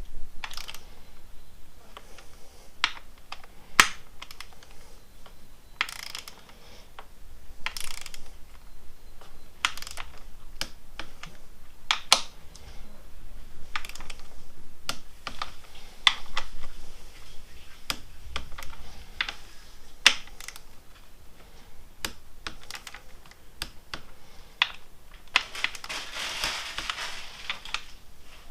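Irregular sharp clicks and small metallic knocks of hand tools and parts being worked on a motorcycle's handlebar clamp, with a denser rattling stretch near the end.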